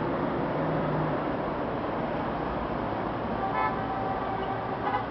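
Steady city traffic noise with short car-horn toots, about three and a half seconds in and again near the end.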